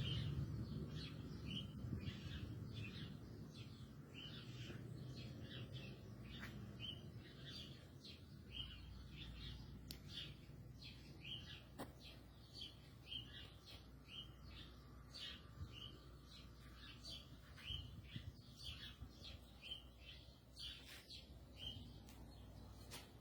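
A small bird chirping over and over, short high chirps about once or twice a second. Beneath it, a low distant rumble from the sky, like a far-off aircraft, fades away over the first several seconds.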